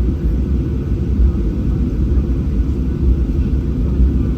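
Cabin noise of a Boeing 737-800 on the ground before takeoff: a steady low rumble from its CFM56-7B engines running at low power.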